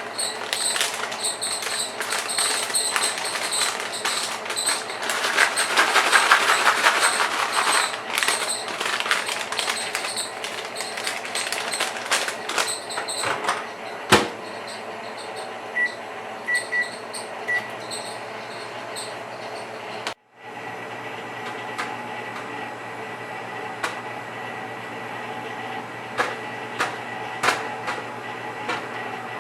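Popcorn popping rapidly in a paper bag inside a running microwave oven, the pops thinning out after about 13 seconds. A sharp click, then three short beeps from the microwave, are followed by the oven's steady hum with scattered late pops.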